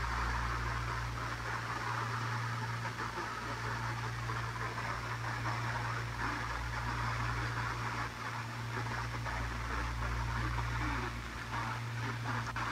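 Sparc portable radio tuned to a weak, distant FM station, giving a steady static hiss with a low hum through its small speaker and no clear programme audio: poor reception of a far-off signal.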